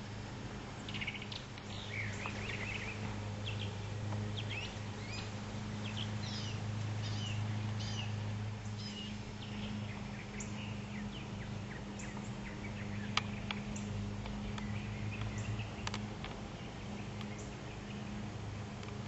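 Small birds chirping in quick, short calls, busiest in the first half and thinning out later, over a steady low hum. One sharp click comes about two-thirds of the way through.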